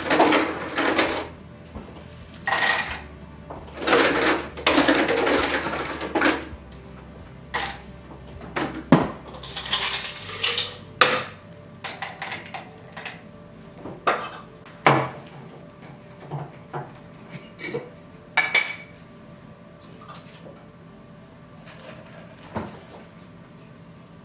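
Ice cubes rattling and clinking as they go into a cocktail glass: longer rattles in the first few seconds, then a run of single sharp clinks that thins out.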